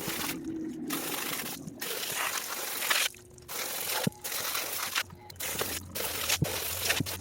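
Running water splashing in uneven spurts, broken by short pauses, with a few light knocks and crunches.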